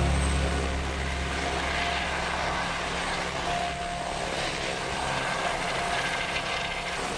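Eurocopter EC135 helicopter hovering, with the steady noise of its rotor and turbine.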